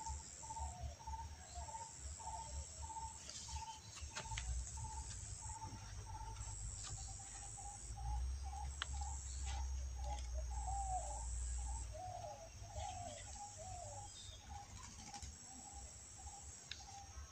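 Birds calling: one repeats a short note about three times a second while others give curving chirps, over a high insect drone that pulses on and off. A few faint clicks and a low rumble lie beneath.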